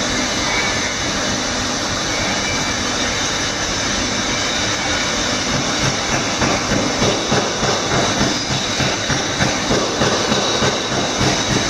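Steady, loud din of running workshop machinery. About six seconds in, a rhythmic pounding of a few beats a second joins it.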